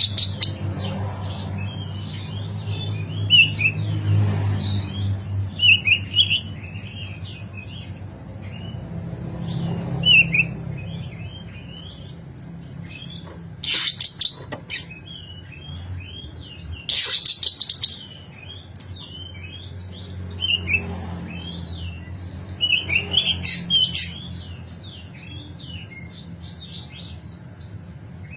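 Oriental magpie-robin singing a fast, varied song of short chirps and whistles, broken by several loud harsh rasping calls, the coarse 'isian kasar' fill-in notes.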